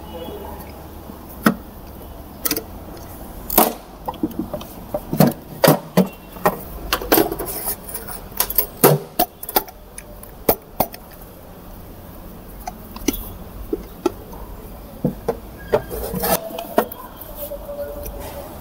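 Irregular metallic clicks and knocks of transfer case parts and hand tools being handled: the carrier gear assembly's bearing being seated in its plate and a lock ring fitted with circlip pliers.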